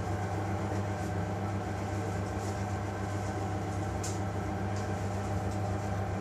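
Steady low hum of running kitchen machinery, with a few faint ticks about four seconds in.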